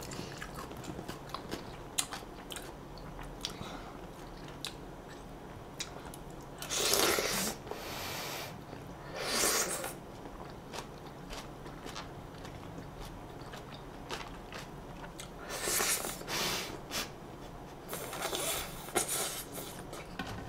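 Close-miked eating: a person chewing with many small mouth clicks, broken by four louder noisy bursts of half a second to a second each.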